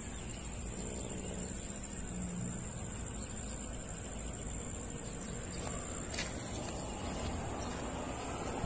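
Steady high-pitched chorus of insects, such as crickets, shrilling without a break over a low rumble.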